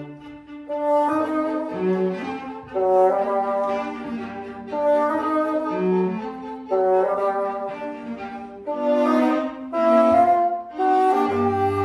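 Bassoon with violin, viola and cello playing a fast, lively classical-era quartet movement in quick-moving phrases.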